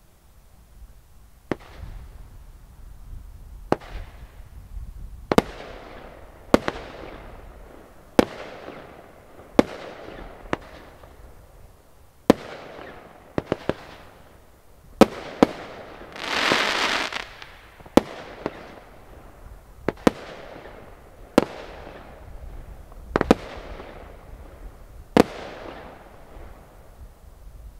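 'King Of Palms' firework cake firing its shots one after another: a sharp bang every one to two seconds, each trailing off in a fading hiss, with three quick bangs together a little before halfway. Just past halfway comes a loud hissing rush lasting about a second and a half.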